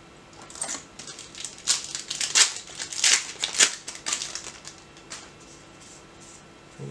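Foil trading-card booster pack wrapper crinkling as it is handled and torn open, a quick run of sharp crinkles that is loudest in the middle and dies away about five seconds in.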